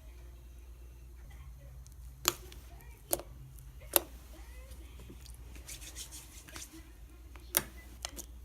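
Fluffy slime being kneaded by hand, giving five sharp pops: three about a second apart in the first half and two near the end. A steady low hum of background noise runs underneath.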